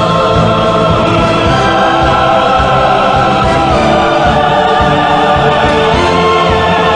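Background music with a choir singing sustained, swelling lines over an orchestral accompaniment.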